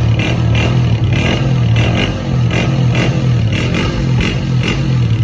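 A 125 cc motorcycle engine running steadily through its silencer, with a strong low drone and an even, repeating pulse.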